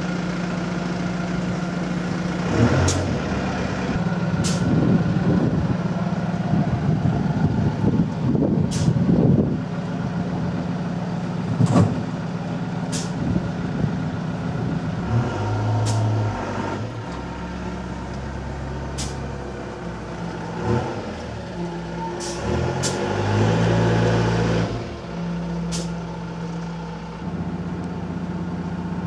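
A vehicle engine running steadily, its low hum stepping down and back up in pitch a few times, with scattered sharp clicks and knocks.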